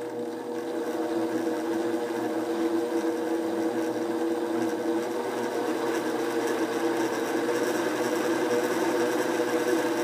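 Electric sewing machine motor spinning a brass sphere on a bearing and shaft assembly: a steady whirring hum that grows slowly louder.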